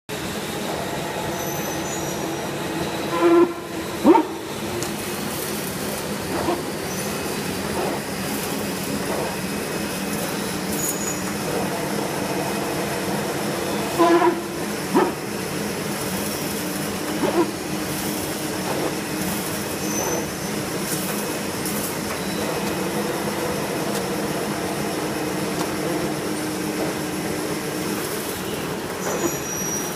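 Automatic hand towel paper cutting machine running with a steady mechanical drone and rattle, broken by occasional sharp clanks, the loudest coming in pairs about three to four seconds in and again about fourteen seconds in.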